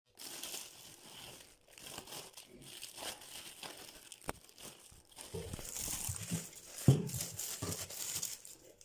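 Thin plastic shopping bag crinkling and rustling as groceries, including a plastic-wrapped loaf of bread, are lifted out of it, with one sharp knock late on.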